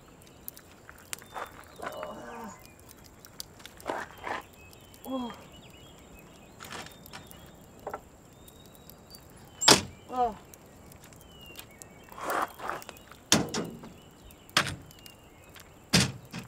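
Irregular knocks and clunks, the loudest about ten seconds in and several more in the last few seconds, like a camper door and things being handled. A few brief grunts fall between them.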